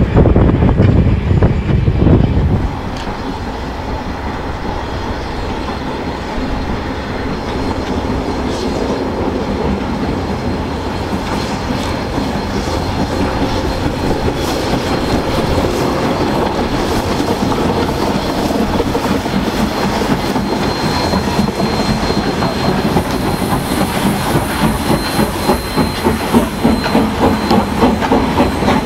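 Soo Line 1003, a 2-8-2 Mikado steam locomotive, running with its train; wheels click over the rail joints. In the last few seconds its exhaust beats come through steadily, about two a second, growing louder.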